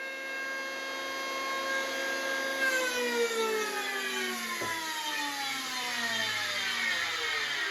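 Electric motor and cutterhead of a RYOBI HL-6A jointer running with a steady whine, then switched off about a third of the way in, the pitch falling steadily as it coasts down. A brief knock comes midway through the run-down.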